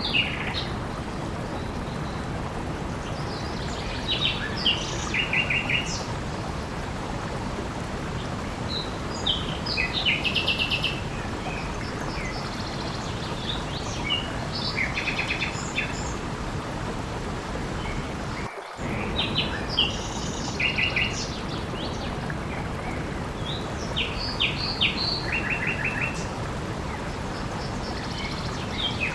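Steady rush of flowing water with small songbirds chirping in short repeated phrases every few seconds. The sound cuts out for an instant about two-thirds of the way through.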